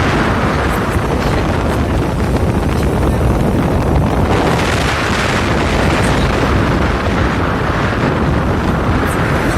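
Loud, steady wind rushing over the microphone.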